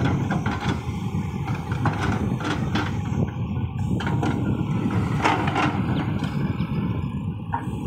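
Tata Hitachi tracked excavator's diesel engine running steadily under load while it digs, with several short knocks and scrapes from the steel bucket working in the soil.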